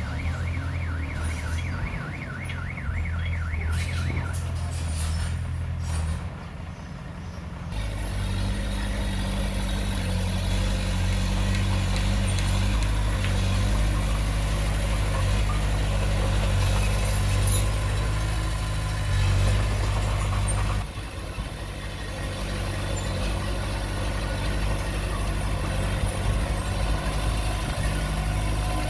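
Heavy diesel engine of earthmoving equipment running steadily, with a warbling reverse alarm beeping fast for the first four seconds. The engine works harder from about eight seconds in and eases off about two-thirds of the way through.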